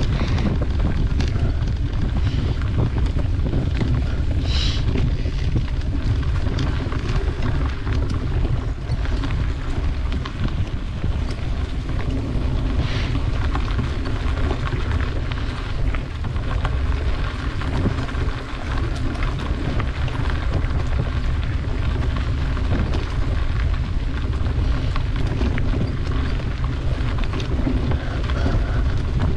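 Wind buffeting the microphone of a camera riding along on a moving bicycle, over the steady rolling of tyres on a dirt trail strewn with dry leaves, with small clicks and rattles from the bumps.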